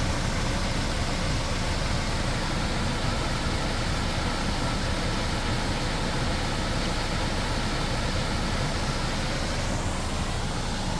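A vehicle engine idling steadily, with a constant broad rushing noise over it.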